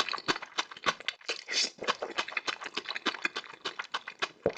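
Close-miked eating of noodles: rapid, irregular wet chewing clicks and smacks, with a few short slurps.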